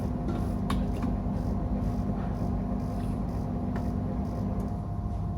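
A steady low machine hum with a faint steady whine over it, unbroken and even in level.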